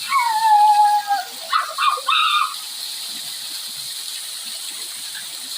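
Steady rushing hiss of a waterfall. A single high-pitched call falls in pitch in the first second, and a few short high calls follow about two seconds in.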